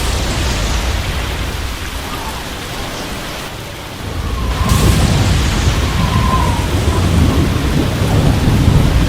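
Rain falling with a deep rumble of thunder, which swells louder about four and a half seconds in.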